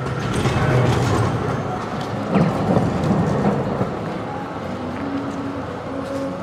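Low, steady rumble of city street traffic, loudest in the first few seconds, with a sharp knock about two and a half seconds in.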